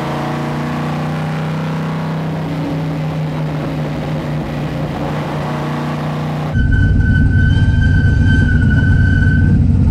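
Straight-piped 540-cubic-inch Donovan aluminum big-block V8 of a 1969 Camaro Z28 race car running at a steady cruise. About six and a half seconds in, the sound cuts to a louder, heavier exhaust rumble with a steady high whine over it.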